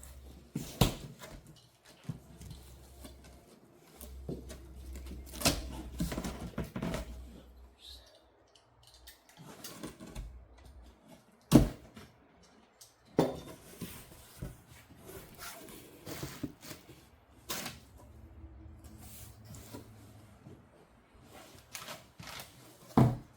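Cardboard box and packaging being handled and opened: a string of irregular knocks, taps and rustles, with a sharper knock about halfway through and another near the end.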